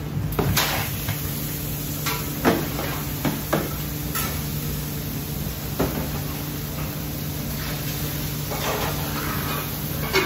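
A tub-load of raw diced chicken tipped onto a flat-top griddle, then a metal spatula clanking and scraping against the steel as the meat is spread out, in irregular sharp knocks over a steady low hum.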